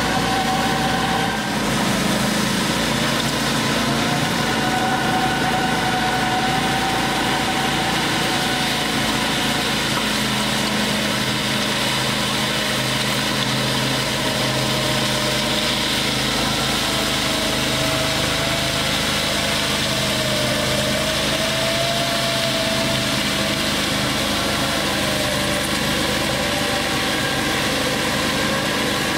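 Rhin-O-Tuff ride-on power trowel's engine running steadily as its twin rotors work across fresh concrete, with a tone that drifts slowly up and down in pitch.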